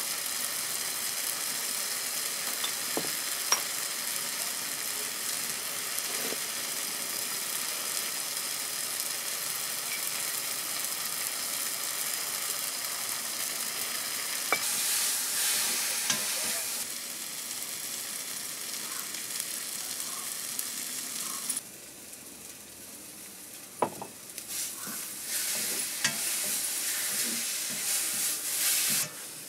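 Spiced soya chunks sizzling in a hot iron kadai while a metal spatula stirs and scrapes them. The sizzle is steady, louder for a couple of seconds midway, then dies down about three-quarters through before stirring scrapes pick up again near the end.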